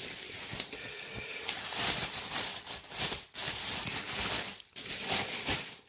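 Clear plastic wrap crinkling and rustling in irregular crackles as hands grip and pull it off a wrapped belt.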